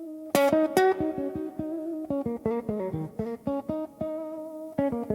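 Blues guitar playing an instrumental passage: a run of single plucked notes, with two loud struck notes in the first second.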